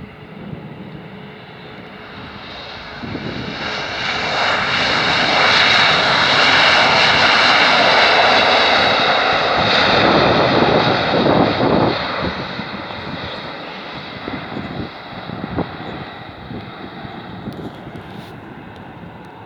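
Airbus A320 jet on its landing approach passing the listener. The engines' rushing roar and whine swell up, stay loudest for several seconds in the middle, then fade away.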